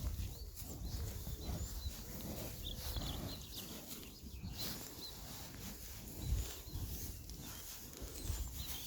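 Cows close to the microphone, breathing and shuffling, with an uneven low rumble and faint small-bird chirps.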